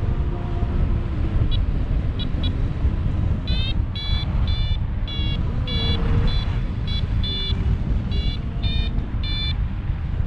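Paragliding variometer beeping in short, evenly spaced high tones about twice a second, the signal that the glider is climbing in lift. The beeps start faintly and grow regular a few seconds in, over heavy wind rumble on the microphone.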